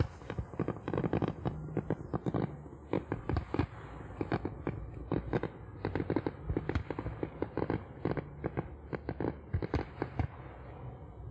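Fireworks display: a rapid barrage of shell bursts and cracks, several a second, over a low rumble, thinning out near the end.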